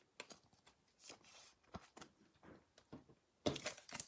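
Faint scattered ticks and rustles of trading cards being handled, then near the end a louder crinkling of a foil trading-card pack wrapper in the hands.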